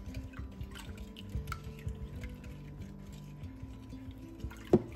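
Light clicking and swishing of a utensil stirring yeast and sugar into warm milk and water in a glass measuring bowl, over soft background music. A single sharp knock near the end.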